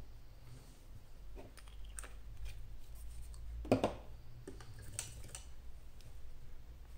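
A few light clicks and knocks of a brush and small paint pots being handled, the loudest about three and a half seconds in, over a low steady hum.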